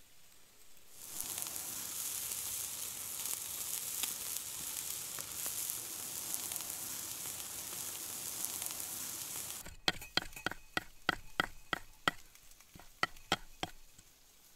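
Meat and pineapple skewers sizzling over glowing wood embers, a steady hiss. About ten seconds in the hiss cuts off and a chef's knife chops parsley on a wooden cutting board in quick sharp knocks, about four a second.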